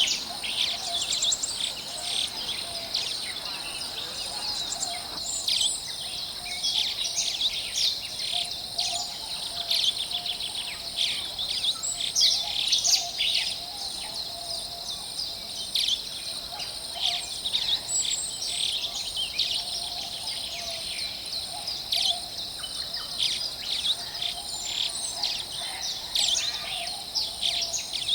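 Several birds singing and chirping at once in a forest chorus, with many short overlapping calls and a steady high thin tone underneath.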